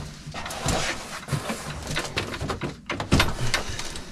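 Cardboard box being carried through a tight doorway and handled: a run of rustles, scrapes and knocks, the loudest knock about three seconds in.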